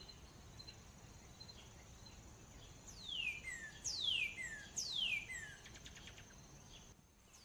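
Faint steady high tone, joined about three seconds in by a run of descending whistled chirps, roughly one a second, like bird calls laid into a background soundtrack.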